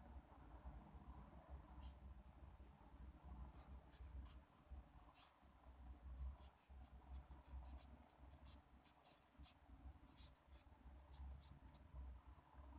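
A pen writing on paper: a run of short, quick scratching strokes, faint, over a low steady hum.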